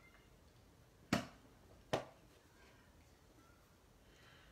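Two sharp clicks, a little under a second apart, from a folding plastic travel palette being handled and opened on a tabletop.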